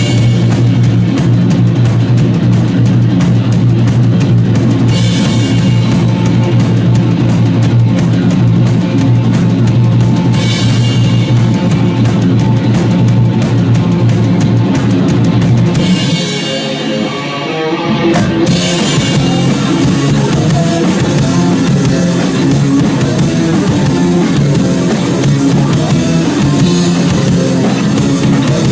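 Instrumental rock passage with drum kit, bass and guitar. About sixteen seconds in, the bass and drums drop out for a moment, then the full band comes back in.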